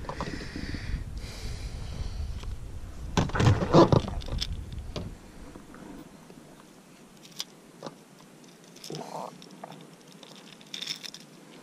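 Handling noises of a freshly caught perch being held and unhooked by hand: rustling and small clicks, with a low rumble that stops about halfway through and a brief murmur of voice around three seconds in.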